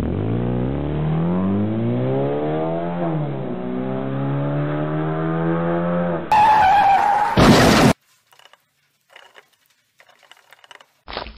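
Cartoon sound effect of a car engine revving. Its pitch climbs, drops about three seconds in as at a gear change, and climbs again. About six seconds in, a loud tyre screech takes over and cuts off abruptly, followed by faint ticking.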